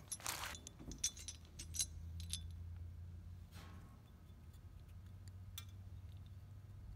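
Light clicks and small metallic taps of hands handling a brass thermostatic expansion valve and pressing a small washer into its fitting. They come mostly in the first couple of seconds, with a brief rustle about halfway and one more click near the end.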